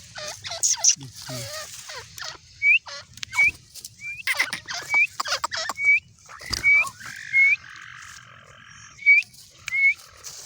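Female grey francolin calling: a series of about nine short, high notes, each rising and hooking over, repeated roughly every two-thirds of a second, among sharp clicking notes and other calls.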